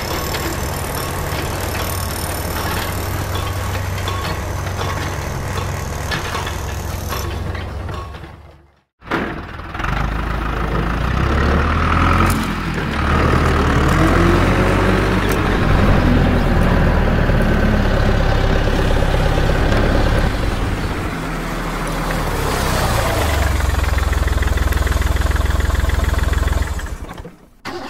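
A heavy vehicle engine runs steadily, most likely a sound effect laid over the picture. It cuts out abruptly about nine seconds in, comes back louder with its pitch shifting, and cuts out again near the end.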